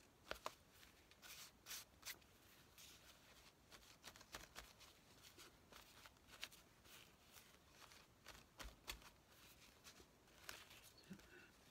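Very quiet desk handling: a scattering of faint, short clicks and light rustles as paper and craft materials are moved and handled.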